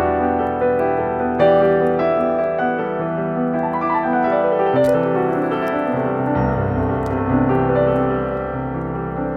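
Soft romantic instrumental music on a keyboard, slow held notes and chords.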